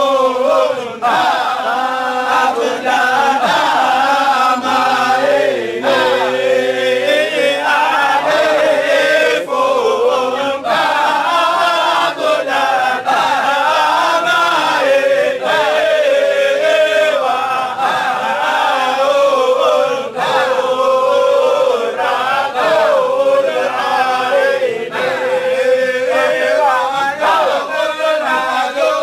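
A group of men chanting Shadhili Sufi dhikr together in unison, their voices rising and falling in short repeated phrases without a break.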